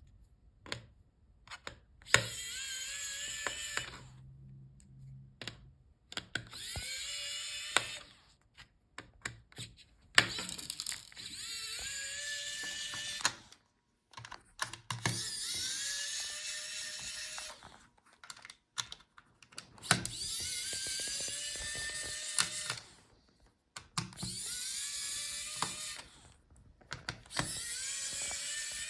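Small electric screwdriver backing out the screws of a laptop's plastic internal bracket: about seven short runs, each rising in pitch as the motor spins up and then holding steady, with small clicks between them.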